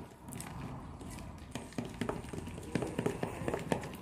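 A spoon stirring homemade glue slime in a plastic bowl: irregular taps and clicks as the mixture thickens into slime after the activator.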